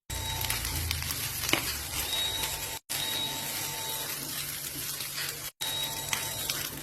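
Food sizzling in a hot frying pan as fried rice is cooked, a steady hiss with a few sharp clicks of a spatula against the pan. The sound cuts out for an instant twice.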